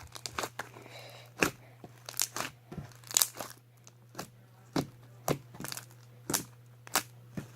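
Sticky homemade fluffy slime of clear glue and shaving cream being kneaded and pulled by hand, giving irregular sharp pops and clicks about every half second. The stickiness shows the slime is not yet fully activated.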